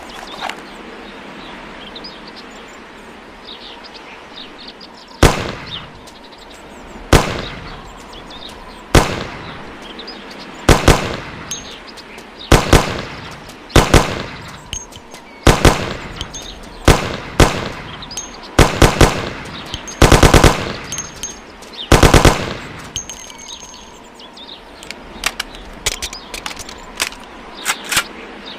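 Thompson M1928 submachine gun firing, first as single shots about two seconds apart, then in short bursts of two or three rounds. Two longer bursts come about twenty and twenty-two seconds in, followed by a scatter of quick shots near the end.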